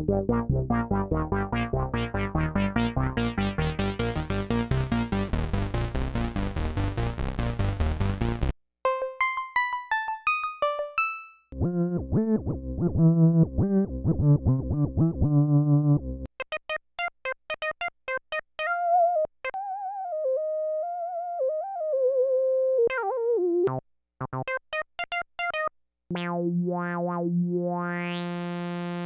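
Moog Subsequent 37 analog synthesizer being played. First comes a fast repeating arpeggio whose tone grows brighter, then stops suddenly about eight seconds in. Scattered short notes, quick low bass notes and a single gliding lead line follow, and near the end a held low note brightens in a rising sweep.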